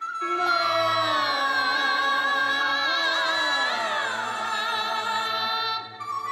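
Liuzi opera singing: a long, drawn-out sung line with wavering pitch over accompaniment, several lines sliding downward about halfway through, breaking off shortly before the end.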